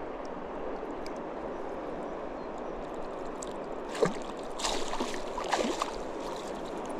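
River water rushing steadily, then a sharp splash about four seconds in, followed by a run of splashing as a hooked chub thrashes at the surface while it is played in.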